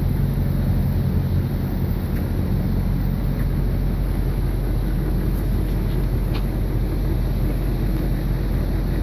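Motor cruiser's engine running steadily underway, a constant low hum under a rush of air and water noise.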